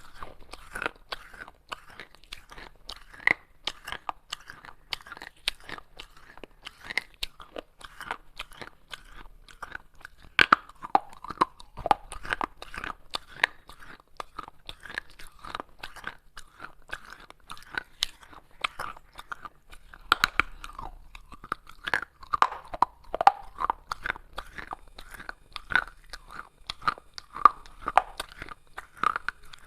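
Someone biting and chewing pieces of baked clay pot: a continuous, irregular run of dry, gritty crunches.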